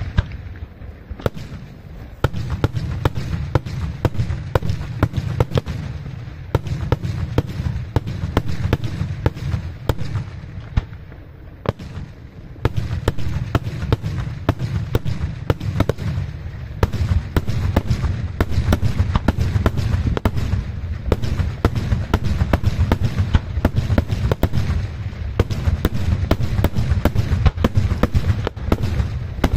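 Daytime aerial fireworks display: rapid volleys of shells bursting as a dense stream of bangs and cracks over a continuous low rumble. The firing eases off about a third of the way in, then picks up again and grows denser and louder toward the end.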